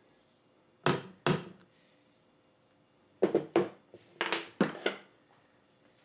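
Sharp hammer blows on a tin can: two strikes about a second in, then a quicker run of about six.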